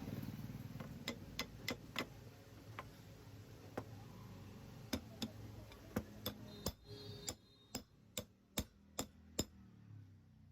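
A series of sharp clicks or taps, irregular at first and coming faster, about two a second, in the second half, over a low hum that fades out.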